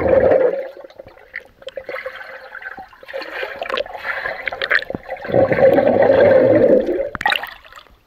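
Swimmer underwater in a pool, heard through a submerged camera: muffled water rushing and bubbling in several surges as he moves and breathes out. A sharp splash comes near the end as he breaks the surface.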